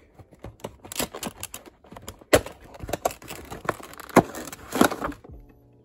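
Cardboard model box being handled and opened by hand: an uneven run of small clicks, scrapes and rustles, with a few sharper knocks a little after two seconds, at about four seconds and near five seconds in.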